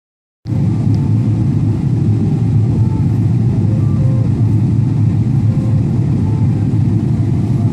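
Steady low rumble of cabin noise inside a Boeing 777-300ER on its landing approach, from the GE90 engines and air rushing past the fuselage; it begins about half a second in.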